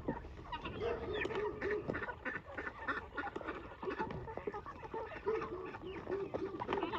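A flock of farm birds calling, with many short calls overlapping in quick runs.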